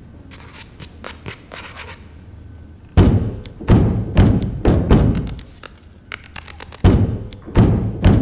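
Loud, heavy percussive thumps with a short ringing decay, in an uneven rhythm: a run of about six beats starting about three seconds in, a short pause, then more beats near the end. The opening seconds hold only faint rustling.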